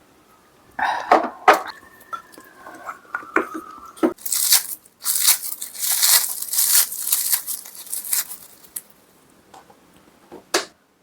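Close-miked eating sounds from a mukbang of braised spicy chicken: a few sharp clicks, then about four seconds of loud crunching and chewing, and one more click near the end.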